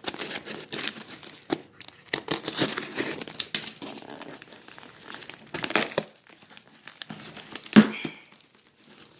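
A taped shipping box being opened by hand: packaging crinkling and tape tearing in irregular bursts, with a few sharp knocks, the loudest near the end.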